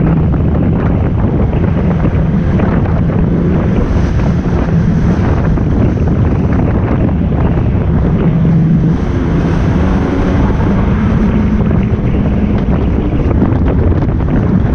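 Yamaha 1800 jet ski's 1.8-litre four-stroke engine running at speed with a steady drone, under heavy wind buffeting on the microphone and water rushing past the hull.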